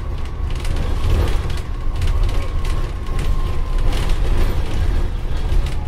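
Dennis Trident Optare Olympus double-decker bus under way, heard from inside: a low diesel engine drone with frequent rattles and knocks from the body and fittings. A faint steady whine fades out about three and a half seconds in.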